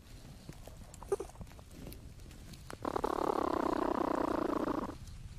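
A young platypus in its nesting burrow gives a buzzing call about two seconds long, starting about three seconds in, after a few faint clicks.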